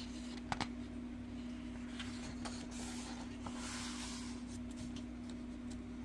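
A paper colouring-book page being handled and turned, a soft rustle about halfway through, with a couple of light clicks of fingers on the paper near the start. A steady low hum runs underneath.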